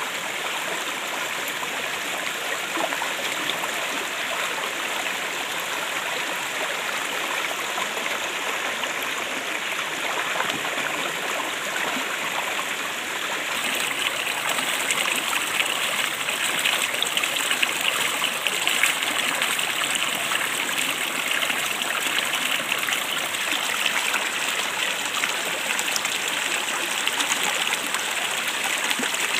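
Hot oil sizzling and crackling as food deep-fries, a dense steady hiss that grows louder and brighter about halfway through.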